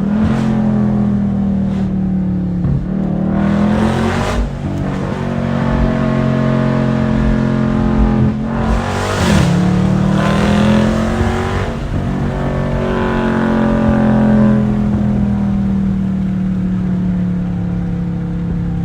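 Dodge Challenger Scat Pack's 392 (6.4 L) HEMI V8 running loudly and being revved several times, each sharp rise in engine pitch sinking slowly back toward idle.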